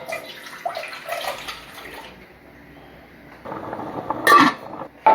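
Wet, sloshing food being handled in kitchenware, with a few clinks and scrapes and a louder clatter about four seconds in.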